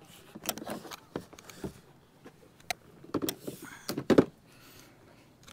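Handling noise from the Starlink antenna and its long cable being moved into place: a run of scattered clicks, knocks and rustles, with the loudest knock about four seconds in.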